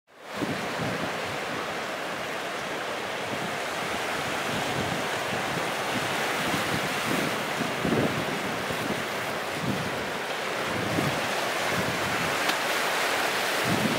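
Sea surf washing in over a rocky shore: a steady hiss of breaking waves among boulders, fading in at the start, with wind buffeting the microphone in low gusts.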